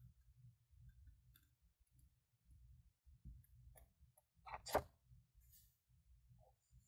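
Faint handling of small paper craft pieces on a work surface: soft low bumps and scattered light clicks, with one sharper click about four and a half seconds in.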